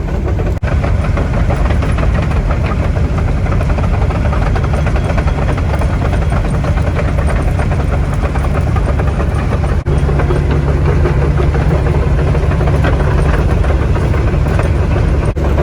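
Heavy diesel machinery engine running steadily.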